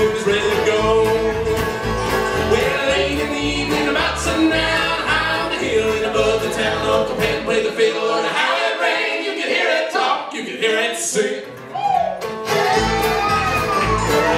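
Live bluegrass band playing and singing, with fiddle, acoustic guitar and upright bass. The bass drops out for a few seconds past the middle, then the full band comes back in near the end.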